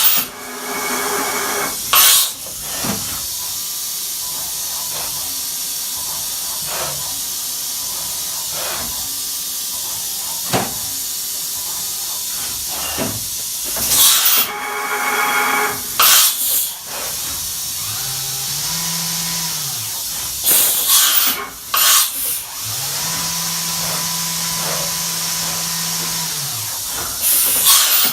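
Fanuc Robodrill vertical machining center running a cycle: a steady hiss with several short, loud hissing blasts. Twice in the second half a low tone rises and holds level for a few seconds.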